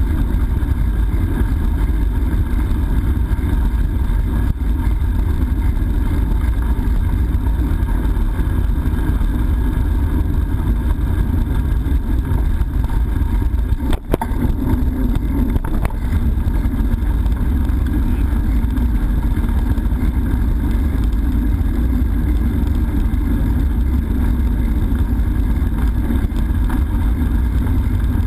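Steady wind rumble buffeting a GoPro's microphone while cycling, with one brief click about halfway through.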